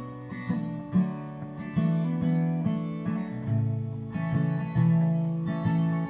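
Solo acoustic guitar, chords picked and strummed with the notes left ringing, the chord changing every second or two.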